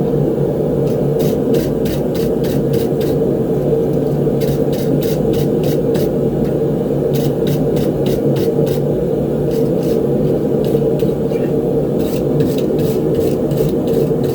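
A forge running with a steady low roar, with runs of quick faint ticks over it.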